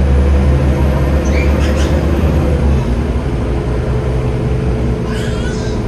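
Scania OmniCity double-decker bus's diesel engine running under way, heard inside the lower deck as a steady, deep drone, a little louder in the first couple of seconds and easing slightly after that.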